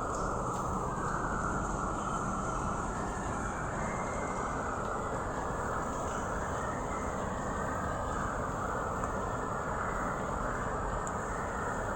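Steady rainfall with crickets keeping up a constant high trill.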